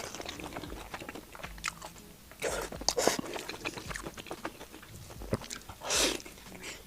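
Close-up eating sounds of crispy deep-fried skewered food being bitten and chewed: crunches and wet mouth clicks, with louder crunching bites around the middle and again near the end.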